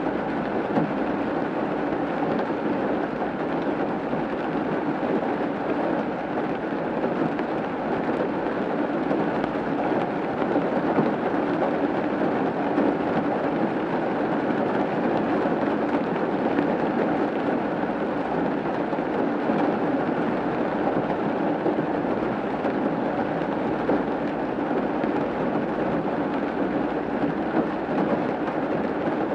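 Rain falling steadily on a roof, an even patter with no let-up.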